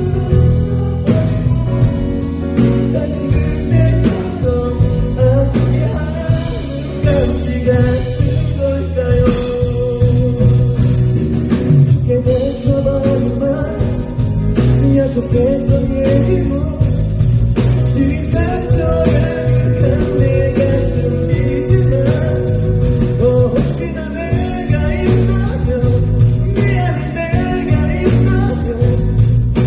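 Live band music with a steady beat and guitar, and a voice singing long held notes over it.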